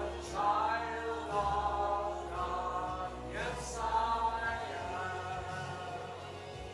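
Worship song with choir-like voices singing long held notes that glide from one pitch to the next.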